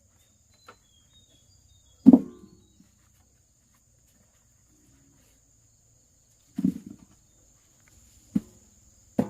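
Four separate dull thuds, a couple of seconds apart, the first about two seconds in, over a steady thin high insect drone.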